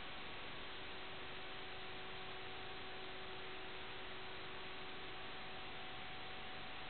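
Steady static hiss with a faint, even hum running through it and no change in level. This is typical of the audio channel of an analog FPV video downlink.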